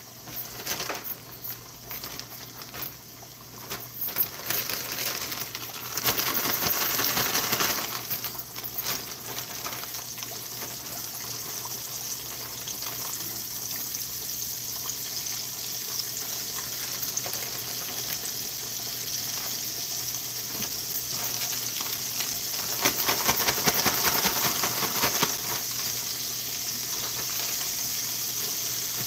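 Cornmeal-coated catfish fillets frying in hot grease in a skillet: a steady sizzle full of small popping crackles. It grows louder about six seconds in and flares up briefly again near the end.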